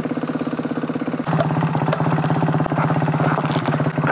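Yamaha WR450F's four-stroke single-cylinder engine running at low speed as the dirt bike rides a rough forest single track. Its note gets louder about a second in.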